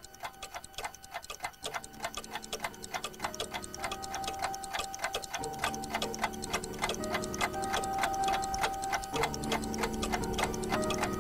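Fast, even clock ticking, with held music tones coming in about two seconds in and swelling steadily louder under it.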